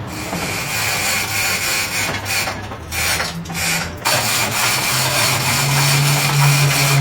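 A machine or power tool working on metal engine parts, a steady rasping grind with a high whine over it. It dips briefly just before halfway, then comes back louder with a stronger low hum.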